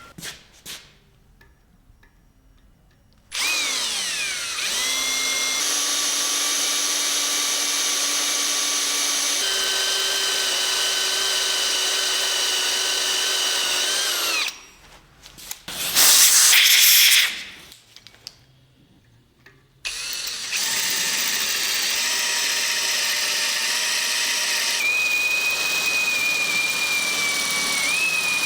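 Electric drill-type power tool running in two long stretches. It spins up about three seconds in, then runs steadily, its pitch stepping as the load changes, and stops. After a pause comes a short, loud hiss-like burst, and the tool starts again at about twenty seconds.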